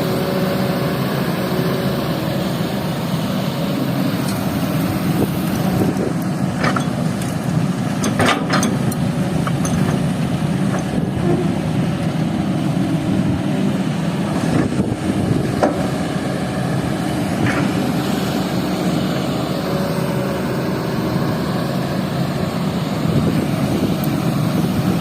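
Excavator's diesel engine running steadily under working load while loading sand, with a few short clanks partway through.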